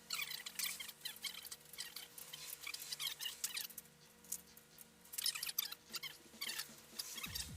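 Hand socket ratchet clicking in quick bursts, several strokes per burst, as the plenum bolts are worked loose.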